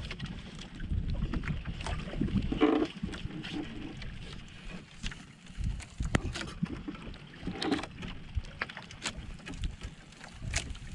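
Wind and water noise around a small outrigger fishing boat, a steady low rumble, with scattered clicks and knocks as a longline is hauled in by hand and coiled into the boat.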